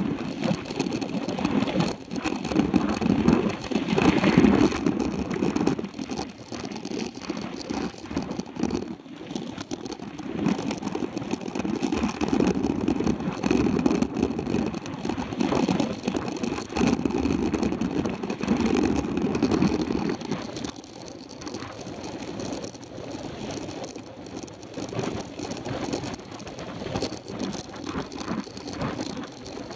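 Mountain bike riding on a dirt road, heard from a camera clamped to its handlebars: tyre rumble on the gravel and the bike rattling over the bumps, an uneven noise that swells and fades.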